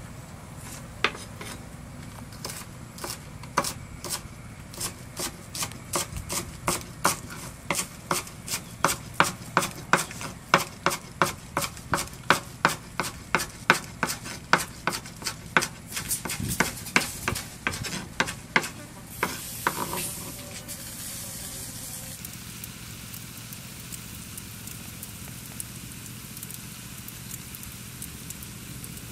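A cleaver chopping spring onions on a wooden cutting board: sharp, even knocks, a few at first, then about two to three a second, stopping a little after two-thirds of the way through. After that only a steady soft hiss is left.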